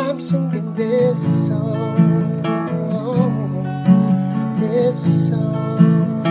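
Song music: a strummed acoustic guitar in an instrumental passage, with a wavering melodic lead line above it.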